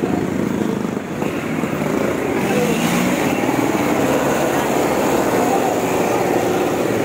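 Busy street traffic: the engines of motor tricycles and other vehicles running close by, as a continuous loud noise.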